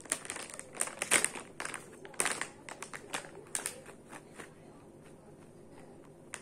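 Plastic pouch of cat food crinkling as it is handled and shaken to tip food into a hand, a run of irregular crackles that is loudest and busiest in the first few seconds, then thins out.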